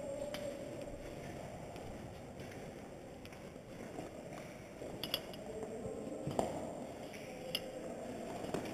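Footsteps and gear rustle from a player moving over a debris-strewn floor, with a few sharp clicks about five, six and a half and seven and a half seconds in.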